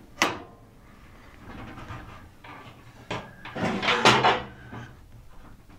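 Ridgid R4512 table saw's bevel mechanism being moved as the blade tilts back to 90 degrees: a sharp click near the start, then metal sliding and scraping, loudest for about a second just before the two-thirds mark.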